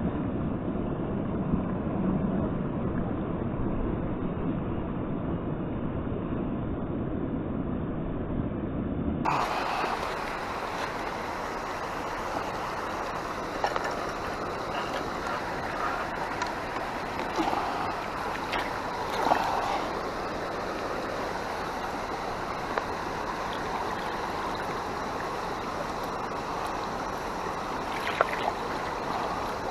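A low rumbling noise for about the first nine seconds, then a sudden change to the steady rushing of river water, with a few faint knocks in it.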